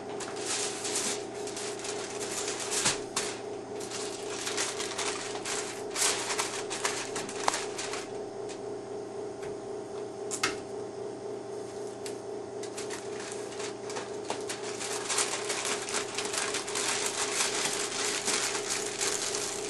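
Aluminum foil crinkling and rustling as it is folded and pressed around a cardboard box, with a few sharper crackles, over a steady hum.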